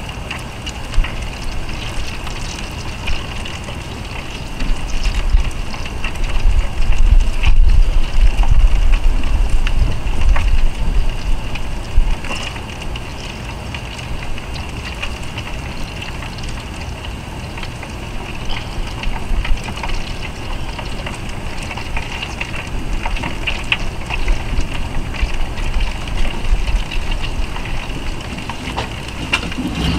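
Salmon fillet sizzling and crackling in a foil pan on a barbecue grill: a steady hiss dotted with small pops. A low rumble joins it for several seconds near the middle.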